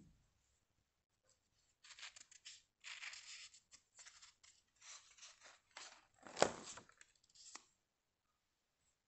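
Pages of a spiral-bound sketchbook being turned, paper sliding and rustling in a run of short rustles, with one louder flap about six and a half seconds in.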